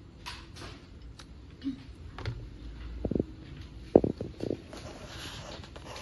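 Handling noise from small plastic fiber-connector parts: scattered light clicks and taps, a few louder knocks a little past the middle, and a brief soft rustle near the end.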